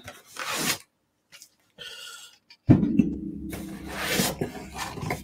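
Cardboard beer box and cans being handled and rummaged through: rubbing and scraping noises, with a sudden louder, lower scraping drone starting about two and a half seconds in.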